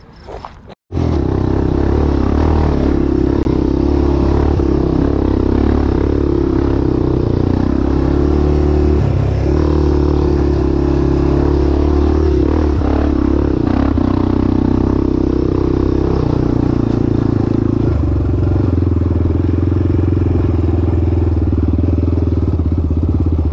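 Small off-road vehicle engine running steadily under way, starting suddenly about a second in. Its pitch holds nearly constant, with slight shifts along the way.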